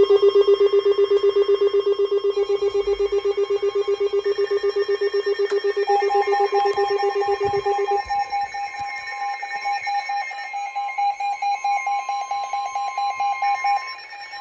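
Weather alert radios sounding their alert alarms together, signalling an incoming warning: a loud, rapid electronic beeping at about four or five beeps a second. A lower beep sounds for the first half, and a higher beep takes over from about six seconds in, with other steady tones layered on top.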